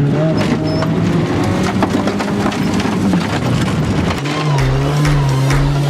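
Car engine revving hard while driving off-road, its pitch climbing and then holding steady, with a rapid scatter of crunching knocks from gravel and scrub striking the car. About four seconds in the engine settles to a steadier, slightly higher note.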